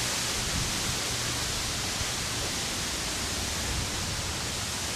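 Steady rushing of water falling over a small man-made waterfall, an even unbroken hiss.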